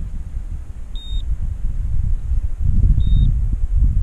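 Drone remote-control alert beep: a short high beep every two seconds, sounding twice, signalling that the Yuneec Mantis Q is flying in return-to-home mode. Under it, a low rumble of wind on the microphone grows louder about halfway through.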